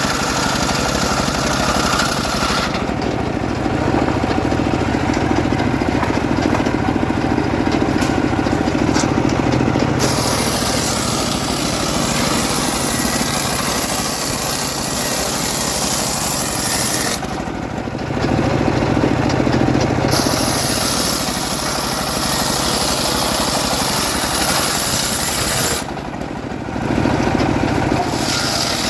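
Home-built engine-driven sawmill running while cutting teak logs. The sound shifts three times: the high hiss falls away and a lower rumble comes up for several seconds, about three seconds in, past the middle, and near the end.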